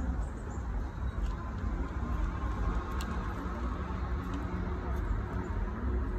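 Outdoor ambience: a steady low rumble with faint distant voices and a few light ticks.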